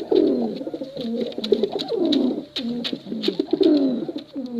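Domestic pigeon cooing: a run of repeated low, falling coos, with scattered light clicks between them.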